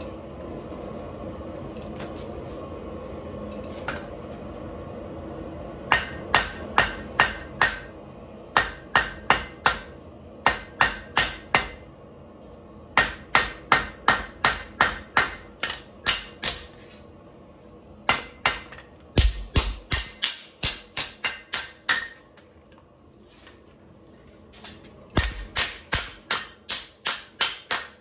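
Hand hammer forging hot 5160 carbon steel on an anvil: runs of blows about three a second, each with a short metallic ring, separated by brief pauses. Before the first run there are about six seconds of steady background noise.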